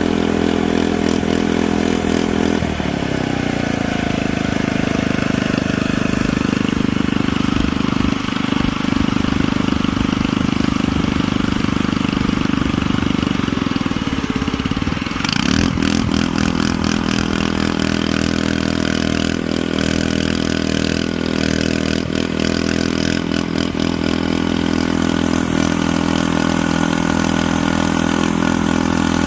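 Engine-like running sound from a hand-made RC Cat D11 bulldozer model. It holds steady, shifts pitch sharply about 3 seconds in and again about 15 seconds in, and a run of short clicks and rattles follows the second shift.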